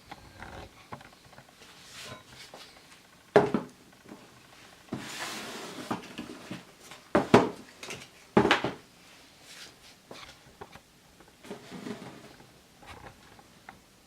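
Handling noises as a pair of sneakers and their packaging are moved about: three louder knocks, one about a third of the way in and two just past the middle, with rustling and small clicks between.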